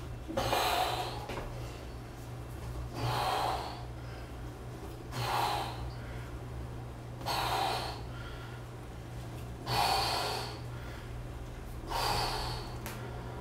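A man breathing hard under exertion while working against a resistance band: a loud breath with each repetition, about every two seconds, six in all, over a faint steady low hum.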